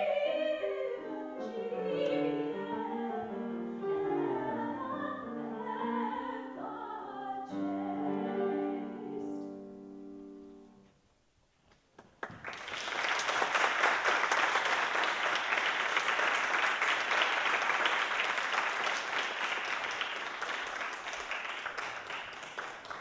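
A soprano sings the closing phrases of a classical art song with piano accompaniment, the last note dying away about ten seconds in. After a brief pause, an audience applauds steadily for about ten seconds.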